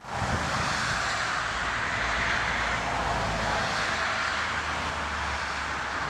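Jet airliner engines running loud as the aircraft rolls along the runway: a steady rushing noise over a low rumble that starts suddenly.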